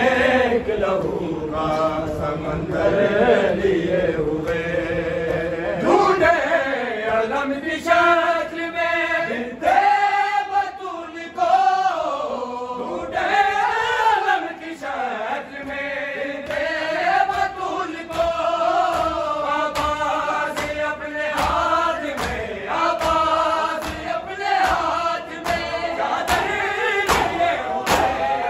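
A group of men reciting a noha in unison, a slow mournful chanted lament with long sung lines. Near the end sharp slaps of chest-beating (matam) join in.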